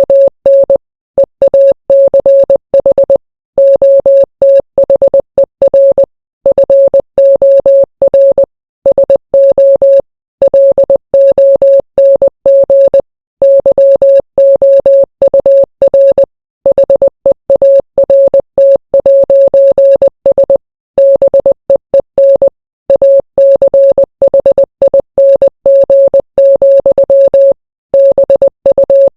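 Morse code played as a single steady beep, keyed on and off in short dots and longer dashes, with longer silent gaps between letters and words.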